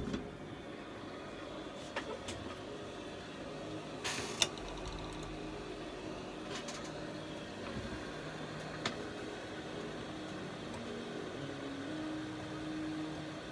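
Steady electric hum of workbench equipment, its pitch shifting a few times, with several light clicks and taps of small tools on a phone board.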